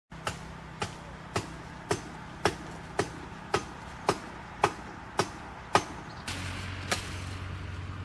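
A sharp knock repeating at an even pace, about two a second, eleven times. About six seconds in, a steady low hum and hiss set in, and one more knock follows.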